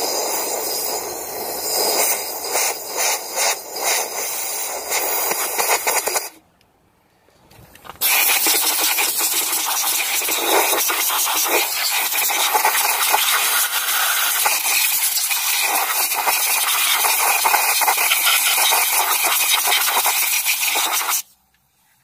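Air rushing through a hose nozzle held at a freshly tapped spark plug hole, clearing out swarf, with a steady hiss and some scraping of the nozzle against the metal. It stops for a moment about six seconds in, then runs steadily again until it cuts off near the end.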